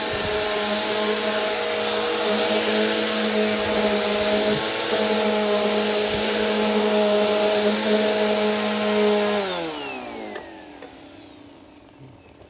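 Bissell Powerforce Helix 2191 upright bagless vacuum running steadily, then switched off about nine seconds in, its motor whine falling in pitch and fading as it spins down.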